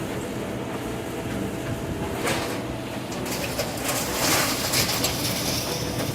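Excavator engine running steadily, with demolition debris scraping and clattering from about two seconds in, loudest in the middle of the clip.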